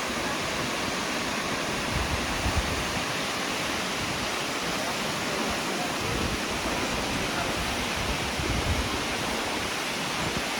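Nachi Falls, a tall waterfall, giving a steady, even rush of falling water, with a few soft low bumps.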